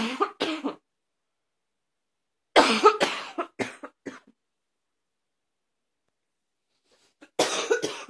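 A person's harsh, barking cough in three fits: two coughs at the start, a run of about five coughs from about two and a half seconds in, and another fit near the end.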